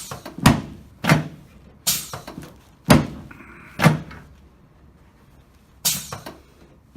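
Chiropractic drop table: its padded drop sections slam down with a heavy thunk at each thrust, six times in quick succession, with a short pause before the last one.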